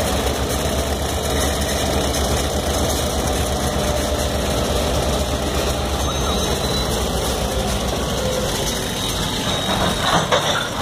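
Diesel freight train passing at close range: the Great Lakes Central locomotive's engine running with a steady low drone under the noise of the cars rolling by. A few brief knocks about ten seconds in.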